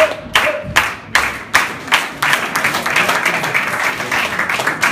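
Audience clapping in a steady rhythm, about two and a half claps a second, filling out into denser applause about two seconds in.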